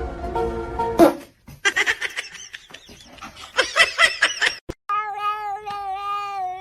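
Music for about a second, then a cat: a flurry of short, high cries, then from near the end one long, drawn-out yowl.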